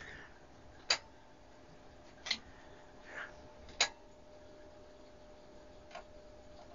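Four sharp clicks spread over several seconds, the last one weaker, from a Bremi BRL-200 tube linear amplifier's front-panel controls being worked by hand. A faint steady hum runs underneath.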